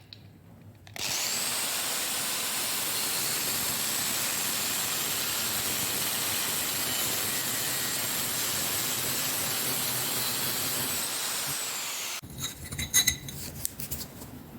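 Angle grinder starting up and running at speed with a steady high whine over a harsh grinding noise for about eleven seconds, then winding down. A few clicks and knocks follow near the end.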